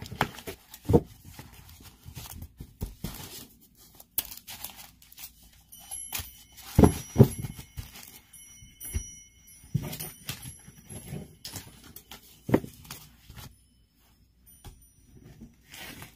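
A deck of tarot cards shuffled by hand: rustling and slapping of cards, with a few louder dull knocks of the deck on the table about a second in, twice in the middle and once more past twelve seconds.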